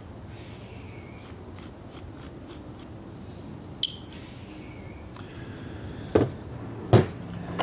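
Handling sounds of a 37mm round being assembled: faint rubbing and squeaks as a part is pressed into an aluminium hull, a sharp click, then two dull knocks near the end.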